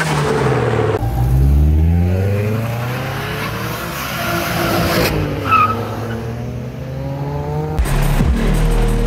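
Car engines revving up and down as cars accelerate away, in several short takes that change abruptly.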